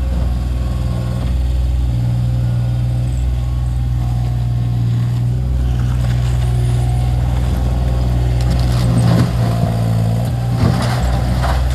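New Holland LS140 skid steer loader's diesel engine running steadily, with a flurry of clanks and crunches from the broken pool frame and liner in its bucket in the second half.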